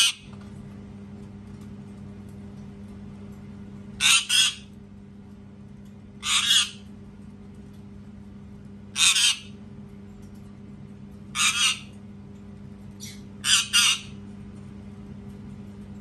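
Indian ringneck parakeet screaming: short, harsh, loud screeches repeated about every two to two and a half seconds, some of them doubled.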